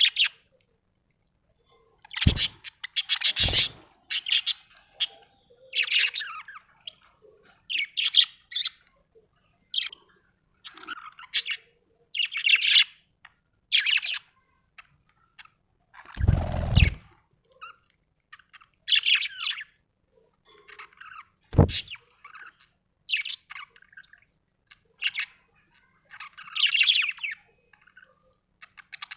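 Budgerigar chirping and warbling in short bursts of tweets. A few thumps cut in, including a longer, heavier one about halfway through.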